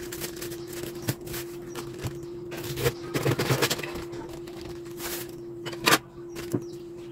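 Crisp napa cabbage leaves snapping and crackling as they are pulled apart, then a knife crunching through the cabbage head on a wooden chopping block, with a sharp knock near the end.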